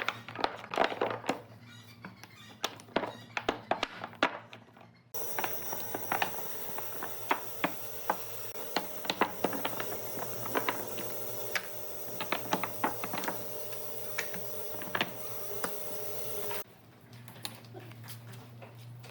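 Irregular sharp taps and knocks, with a steady hum and hiss that comes in suddenly about five seconds in and cuts off about seventeen seconds in.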